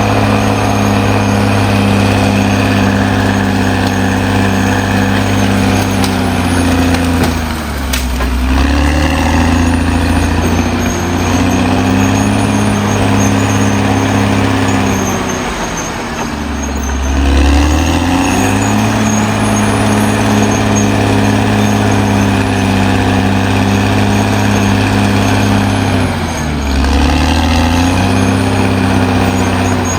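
Caterpillar D6R XL bulldozer's diesel engine running hard. Three times its note sags steeply and then climbs back, as the engine lugs and recovers.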